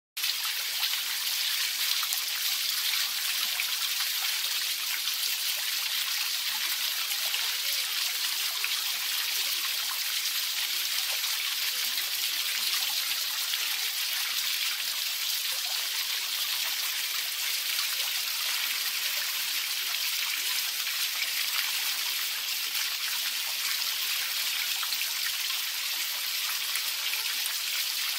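Water mill's small horizontal water wheel turning under a jet of water: the jet strikes the paddles and sprays into the channel below with a steady, hissing splash.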